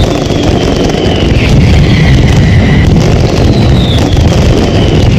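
Mascletà firecracker barrage, so dense and close that the bangs merge into one continuous loud rumble on a phone's microphone. Over it, several whistling fireworks slide down in pitch.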